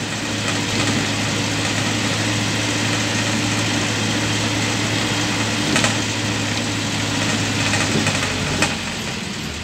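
Engine and road noise of a moving vehicle heard from inside the cabin: a steady low hum under an even rumble, with two brief knocks, one past the middle and one near the end.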